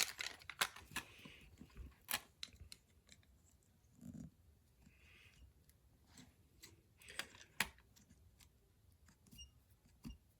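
Scattered clicks and taps of small plastic toy parts being handled and fitted by hand, with the sharpest knocks near the start, around two seconds in and around seven and a half seconds in, and a short low sound about four seconds in.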